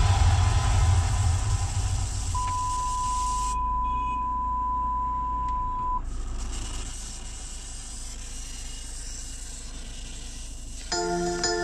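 A loud low rumble dies away, then a steady single-pitched electronic beep sounds for about three and a half seconds and cuts off sharply. Near the end, a few chiming notes begin.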